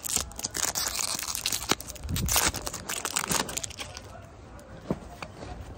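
Trading card pack wrapper crinkling and tearing as it is handled and opened for about four seconds, then quieter handling of the cards with one sharp tap about five seconds in.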